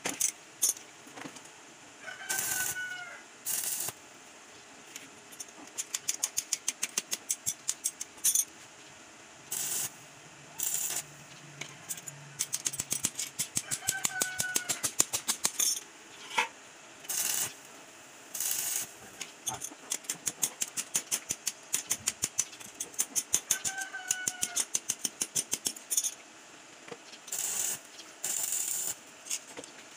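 Stick (arc) welder making short tack welds: the arc crackles in brief bursts of about half a second, with trains of rapid sharp crackles and clicks between them.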